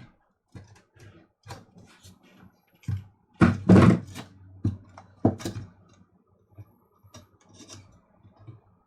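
Knocks and clicks of small plastic and metal parts being handled as a coffee grinder's motor and switch board are worked loose, with a louder clatter about three and a half seconds in.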